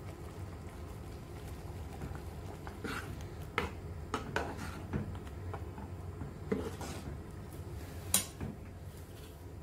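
A stainless steel spoon stirring thick curd and coconut paste in a coated pot, clinking and scraping against the pot's side and rim several times, with the sharpest clink near the end.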